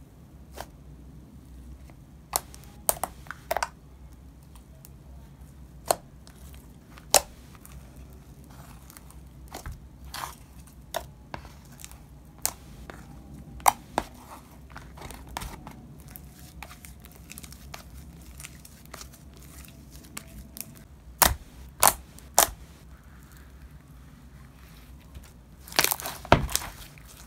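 Clear glue slime being kneaded and squeezed by hand to mix in gold pigment powder, giving irregular sharp clicks and pops, with a busier, louder run of them near the end.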